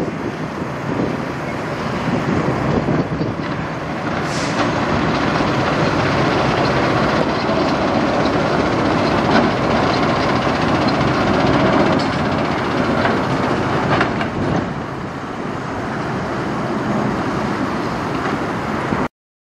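Diesel engine of a Peterbilt semi tractor with straight stacks, running as it pulls a flatbed loaded with lumber slowly past and away, loudest as it goes by, with a few sharp clanks. The sound cuts off suddenly near the end.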